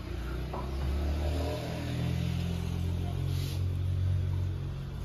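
A vehicle engine running nearby, its pitch stepping up as it revs about a second and a half in, then holding steady.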